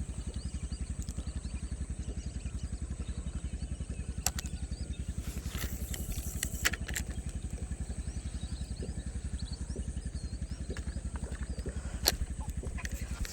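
A steady low throb of an engine running evenly, with a faint steady high whine above it and a few soft clicks.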